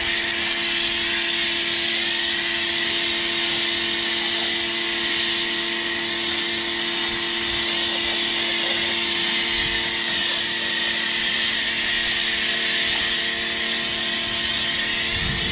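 Pressure washer running steadily, a constant hum with a few held tones, under the loud even hiss of a foam cannon spraying soap foam.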